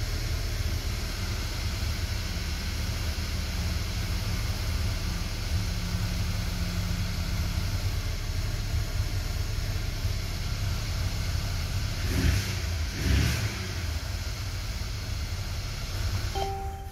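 Mercedes-Benz W213 E-Class engine running steadily at idle, with two brief swells in level around twelve and thirteen seconds in. Near the end a short electronic tone sounds, then the sound cuts off suddenly.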